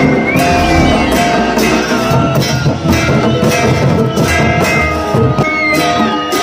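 Himachali folk dhol drums played together in a steady, driving beat, struck with curved sticks and bare hands, with a high melodic line wavering and holding notes above the drumming.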